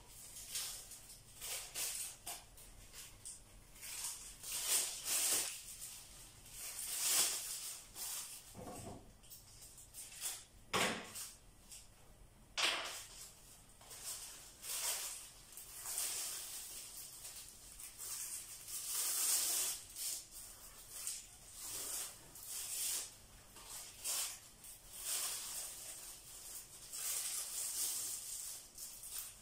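Black plastic bag strips rustling and crinkling in irregular bursts as they are handled and tied onto a cord.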